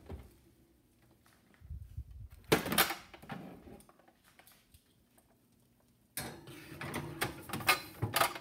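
Metal baking pans clanking and scraping against a wire oven rack as they are put into the oven: a short clatter about two and a half seconds in, then a longer stretch of clanking and sliding near the end.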